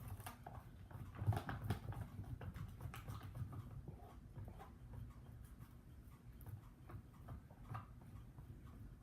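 White glue being stirred in a bowl with food colouring, giving irregular sticky clicks and soft scraping, busiest in the first few seconds.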